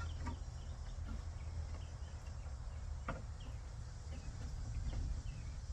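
Steady low rumble with scattered faint high chirps, and a single sharp click about three seconds in.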